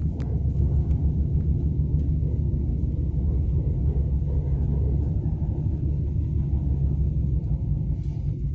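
Steady low rumble heard inside the passenger car of a Lastochka (Siemens Desiro RUS) electric train running along the track, with a few faint ticks.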